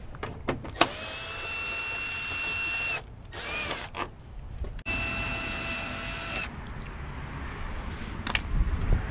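Cordless power driver running with a steady high whine in two runs of about two seconds and one and a half seconds, with a short blip between, backing out 10 mm headlight bolts. A few sharp clicks of tool and metal parts around it.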